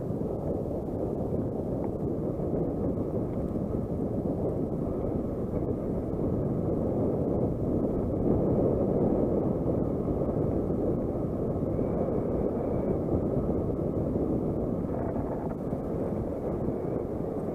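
Wind buffeting the microphone of a camera riding on a mountain bike descending a dirt singletrack: a steady, loud rushing noise mixed with the tyres rolling over the dirt.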